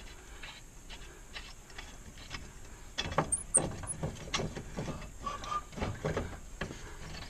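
Metal clicks and clanks of a wrench working the nut that holds a lawn tractor's mower blade on its spindle: faint at first, then a string of irregular sharp knocks from about three seconds in, with a brief squeak partway through.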